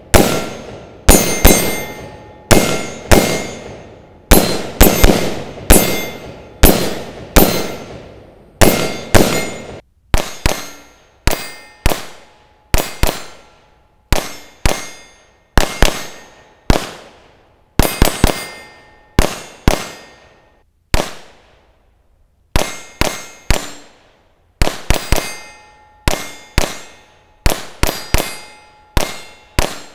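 Gunfire at steel targets: shot after shot, about one to two a second and often in quick pairs, each followed by the clang and fading ring of the struck steel plate. After about ten seconds the reports turn lighter and sharper, with less low boom.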